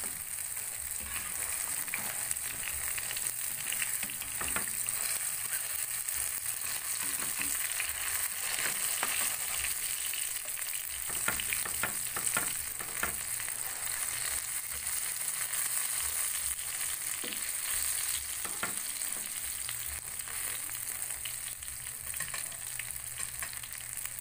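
Eggplant omelettes (tortang talong) frying in shallow oil in a nonstick pan: a steady sizzle with a few sharp crackles now and then.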